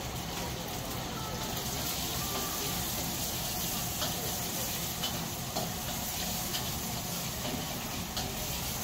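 Egg sizzling in hot oil in a carbon-steel wok over a high gas burner, a steady frying hiss over a low burner rumble. A steel spatula clinks against the wok a few times.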